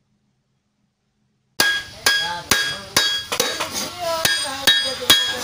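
Hammer blows on a small bronze gong blank held on a steel anvil block: a steady run of strikes, about two and a half a second, each with a bright metallic ring. The hammering starts suddenly about one and a half seconds in, after silence.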